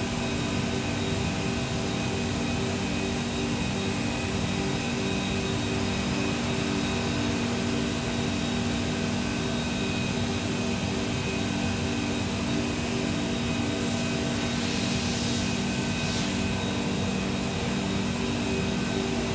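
Felder Format4 Profit H08 CNC router running with its gantry traversing: a steady machine drone carrying several constant hum tones. About three-quarters of the way through, a hiss joins for a couple of seconds.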